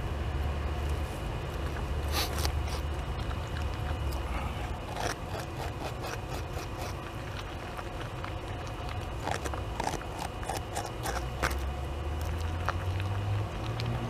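A North American beaver gnawing bark and cambium off a large tree trunk: irregular scraping clicks of its incisors on the wood, over a steady low rumble.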